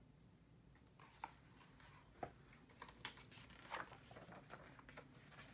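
Faint rustling and soft ticks of a picture book's paper pages being turned and handled.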